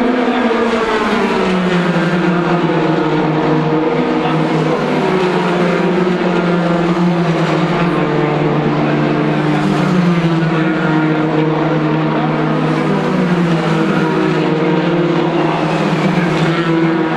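Several Formula 3 cars' two-litre four-cylinder engines at high revs passing in a group, their overlapping notes falling and rising in pitch as the cars brake, change gear and accelerate.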